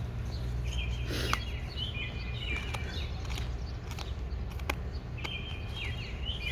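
Wild songbirds singing outdoors in repeated chirping phrases, with a few sharp clicks and a steady low background rumble.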